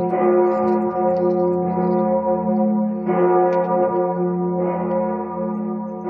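The Kardinalsglocke, a single large church bell of St.-Paulus-Dom in Münster, tolling as a mourning bell, struck about every one and a half seconds so each stroke sounds over the hum of the one before. Wind rumbles on the microphone underneath.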